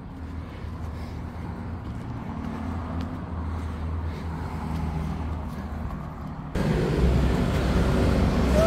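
Road traffic: a motor vehicle's engine running close by and growing gradually louder, then an abrupt jump to louder traffic noise about two-thirds of the way through.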